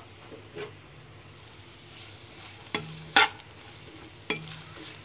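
Sliced onions frying in oil in a non-stick karahi, stirred with a spatula: a low steady sizzle broken by three sharp knocks of the spatula against the pan, about three and four seconds in.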